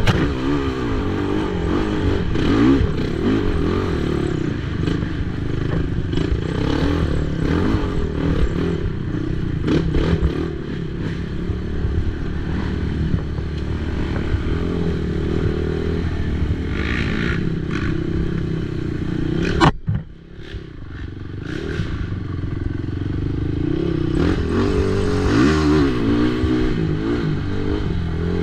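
Race ATV engine running hard, its pitch rising and falling as the throttle is worked, with scattered knocks from the rough ground. About two-thirds of the way through there is a sharp knock, the engine drops off briefly, then it builds back up.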